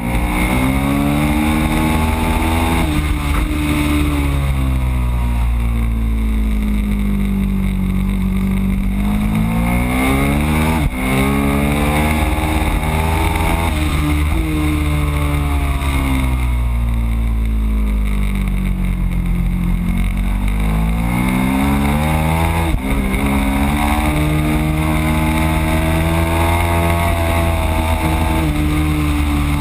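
Ducati Streetfighter's V-twin engine at race pace, revs climbing hard along the straights and dropping away in long sweeps under braking into corners, twice.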